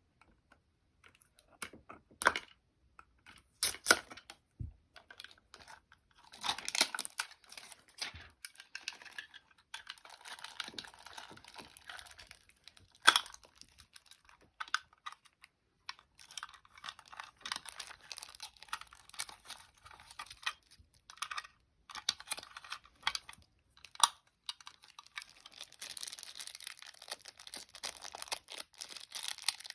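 Toy packaging being handled and opened: wrapping crinkling, rustling and tearing, with a few sharp clicks and taps.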